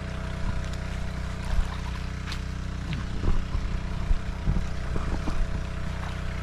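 Petrol-engine water pump running steadily, pumping water out of a pond to drain it.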